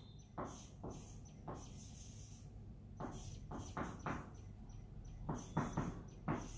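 Marker pen squeaking and scratching on a whiteboard in a series of short strokes as lines and letters are drawn.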